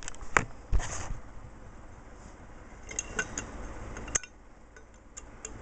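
Light metal clicks and taps of a bolt being fitted through a BMX sprocket and crank arm by hand. They come scattered, with a sharper click about four seconds in.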